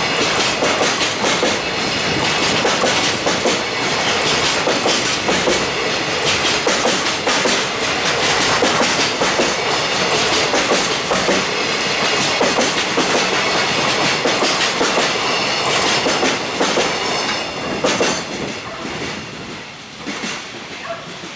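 Container flat wagons of a freight train rolling past, their wheels clattering rapidly over rail joints and the points of a junction. The clatter stops about 18 seconds in as the last wagon clears, and the rumble fades away.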